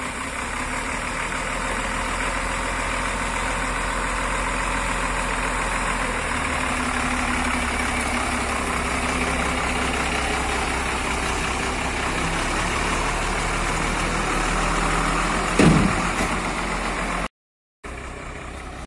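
Tata tipper truck's diesel engine running steadily, its low note shifting slightly about six seconds in. A brief louder burst comes near the end, followed by a sudden break and a quieter stretch.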